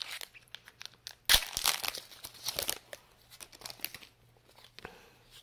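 Pokémon trading card booster pack's foil wrapper being torn open and crinkled: a sharp rip about a second in, a couple of seconds of dense crinkling, then quieter scattered rustles.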